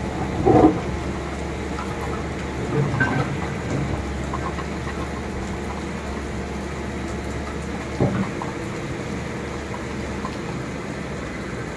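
Steady rain over a low rumble that eases about eight seconds in, with a few short knocks.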